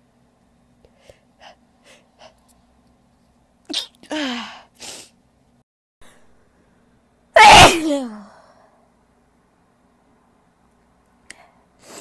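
A woman's sneeze. A few faint sniffs come first, then a short build-up of sharp catching breaths about four seconds in. A little past halfway comes one very loud sneeze that ends in a falling 'choo'.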